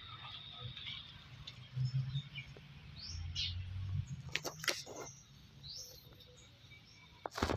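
A few short bird chirps, about three and a half and six seconds in, over quiet background. Sharp clicks come about four and a half seconds in and again near the end.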